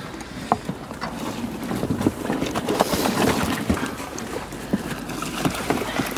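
Water splashing with irregular slaps and knocks as a cast net full of fish is hauled in, the fish thrashing in it.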